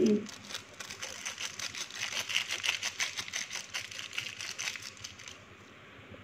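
Sachet of Royco chicken seasoning powder crinkling as it is shaken and emptied over a pot of broth: quick, irregular crackles that stop about five seconds in.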